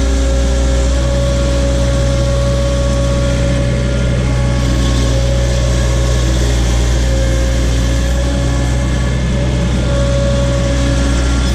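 Case / Davis D100 backhoe engine running steadily while digging, a low drone with a steady whine above it.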